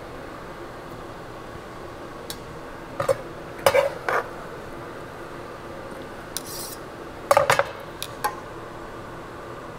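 Metal kitchenware clinking and knocking: utensils against a stainless steel saucepan and cutting board while cooked chicken is picked apart and dropped into the pan. A few short clinks come in small clusters, about three to four seconds in and again, loudest, about seven to eight seconds in.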